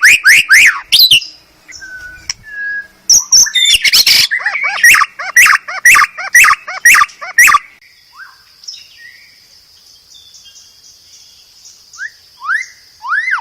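White-rumped shama (murai batu) singing: a loud, varied run of quick whistled and chattering notes that breaks off about eight seconds in, followed by a faint high trill and then a few rising whistles near the end.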